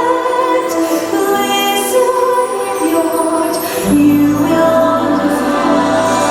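Orchestral show music with singing, including female voices and a choir; a bass line comes in about four seconds in.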